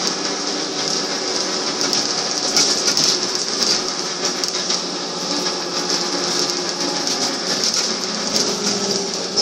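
Interior running noise of a Škoda 15TR articulated trolleybus under way: a steady rush of road and running noise with small irregular rattles.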